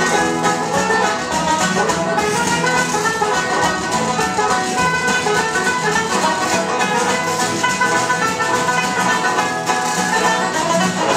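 Live traditional Irish session: tenor banjo and guitars playing a lively tune together, with a bodhrán beating time.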